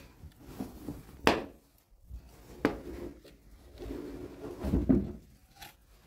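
Rug cover being lifted and shifted on a hard floor: two sharp knocks about a second and a half apart, then a cluster of scuffing knocks and rustling near the end.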